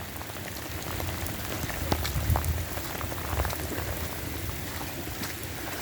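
Heavy rain in a torrential downpour, an even hiss of falling rain with sharp drop hits close by and some low rumble.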